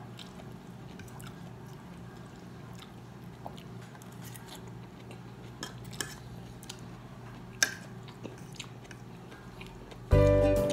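Quiet eating sounds: a metal fork clicking and scraping on a plate, with chewing, over a low steady hum. Loud music comes in near the end.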